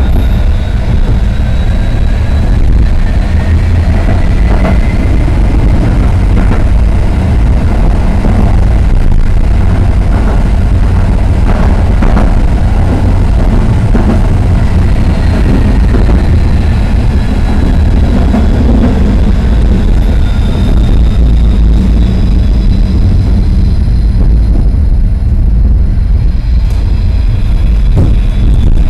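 Tram running along its track, heard from inside at the front: a steady heavy rumble of wheels on rails, with an electric traction-motor whine that rises in the first few seconds and falls again past the middle, and a few sharp clicks from the rails.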